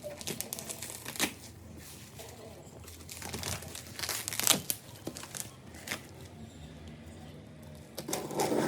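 Packaging being handled during an unboxing: irregular crinkling and rustling with several sharp crackles, busiest near the end.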